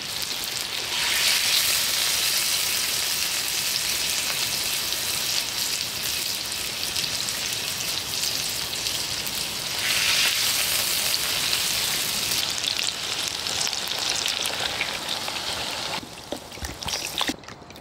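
Food frying in oil in a pot on a camp burner turned to high flame: a steady sizzle that grows louder about a second in and again around ten seconds, then dies down near the end with a few clicks.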